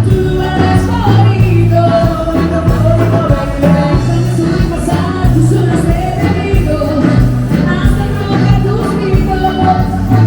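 Music with a singing voice, a steady drum beat and a sustained bass line.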